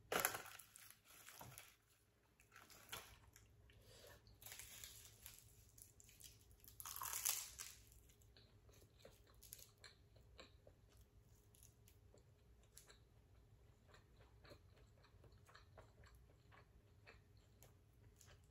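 Soft chewing and biting with small mouth clicks, with a short loud crunch right at the start and a longer louder one about seven seconds in.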